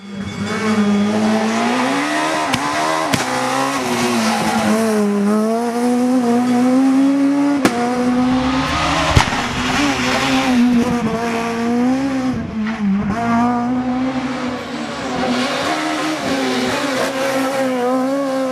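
Renault Clio S1600 rally car's high-revving four-cylinder engine at racing speed, its pitch climbing and dropping again and again through gear changes and bends. There are a few sharp cracks along the way.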